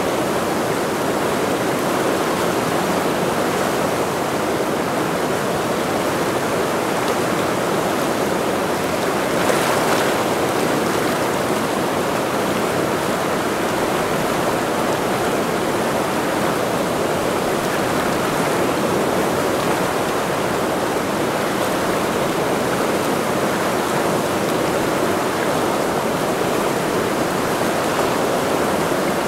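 Mountain river rushing, a steady, even noise of fast-flowing water.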